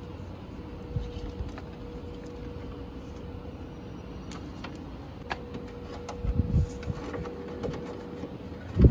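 Hands handling wiring inside a car door's metal frame: scattered light clicks and rustling as taped wire connections are worked and tucked into the door cavity, with a dull thump about six and a half seconds in and a louder thump near the end. A faint steady hum runs underneath.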